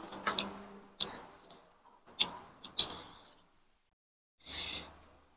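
Forks and spoons clicking against dishes during eating: four or five sharp, separate clicks over the first three seconds, then a short soft noise near the end.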